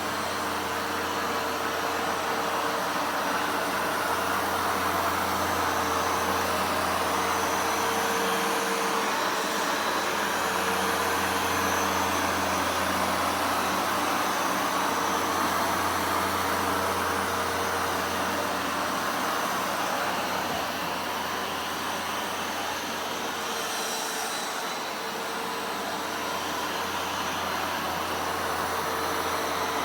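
Vacuum cleaner running steadily, a continuous whooshing hum with a held whine, dipping a little in level briefly near the end.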